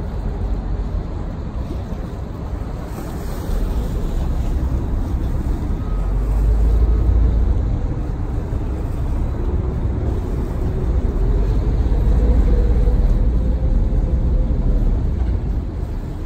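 Steady low rumble of a large engine with wind noise on the microphone, swelling a little louder about six seconds in and again near twelve seconds.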